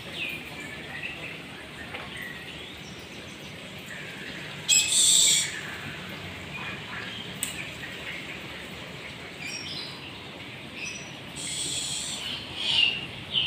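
Sliding glass door panels being pushed along their track and their centre handles worked: a few short, loud, high-pitched scraping bursts, the loudest about five seconds in and more near the end, with short high chirps between them.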